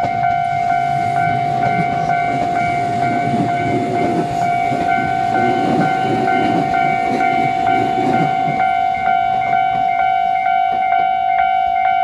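Japanese level-crossing alarm ringing steadily, about two chimes a second, while a Tobu 800-series electric train passes close by with a rumble and wheels clicking over the rail joints. The train noise fades out about three-quarters of the way through, leaving the alarm ringing on.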